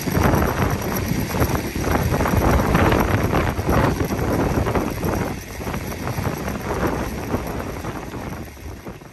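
Wind buffeting the microphone: a loud, gusty rumble that rises and falls unevenly and eases off near the end.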